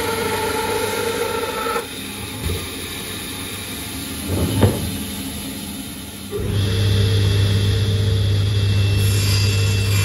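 Bandsaw motor running with a steady hum, which stops about two seconds in; a sharp click near the middle. From about six seconds in, a table saw motor runs with a strong, steady low hum.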